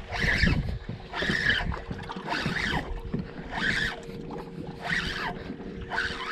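Small waves lapping and slapping against a boat's hull in a regular rhythm, about once a second, over a faint steady hum.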